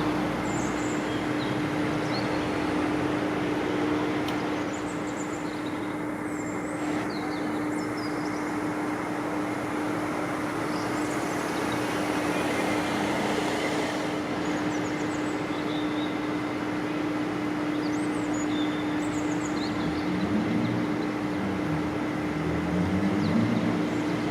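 Steady motor or traffic hum with a constant low drone, over which small birds give short, faint high chirps now and then.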